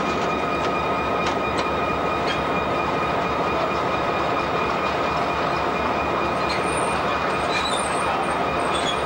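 Diesel-electric locomotive engines running steadily, a loud even mechanical noise with a constant high whine over it. A few light clanks sound in the first couple of seconds.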